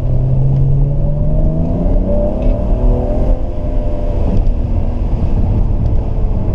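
BMW 335i turbocharged straight-six, fitted with an AC Schnitzer rear exhaust box, accelerating hard under full throttle. Its note climbs steadily in pitch for about three seconds as the revs rise, then drops back to a lower drone. It is heard from inside the cabin with a window open.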